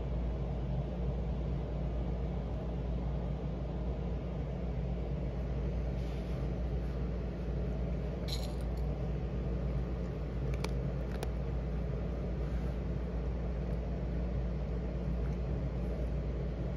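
A steady low rumble runs under everything, with a few short, sharp clicks around the middle as dry cat kibble is handled and eaten.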